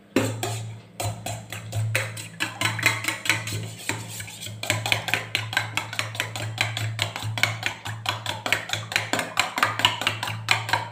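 A metal spoon beating raw eggs in a stainless steel bowl, clinking against the bowl's side several times a second in a quick, regular rhythm, over a steady low hum.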